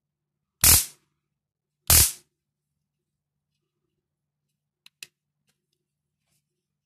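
An 801 Type handheld stun gun discharging across its electrodes in two short, loud arc bursts about a second apart, followed by two faint clicks about five seconds in.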